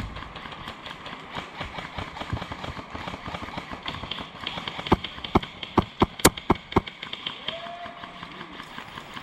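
A quick string of about eight airsoft gun shots, sharp cracks a fraction of a second apart, starting about five seconds in, over a faint steady high hiss.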